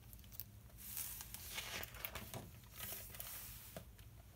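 Hardcover picture book being opened and its pages turned: faint paper rustling in several short bursts, with a few light ticks of handling.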